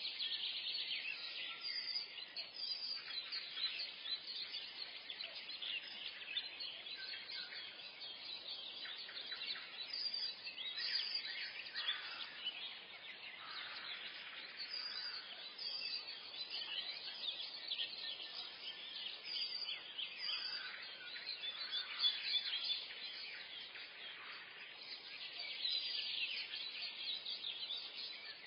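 Morning forest chorus of many songbirds chirping and singing together, a dense, continuous overlap of short high calls and trills.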